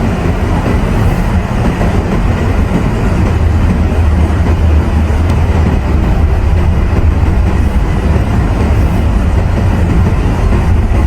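Steady low rumble and road noise of a car being driven, with no change in pace.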